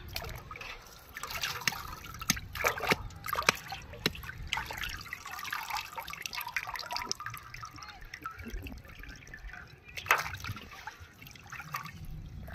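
Cut fish pieces being washed by hand in a metal basin of water: irregular splashing and sloshing, with water trickling and dripping back into the basin as pieces are lifted out. The louder splashes bunch up in the first few seconds, and there is one sharp splash about ten seconds in.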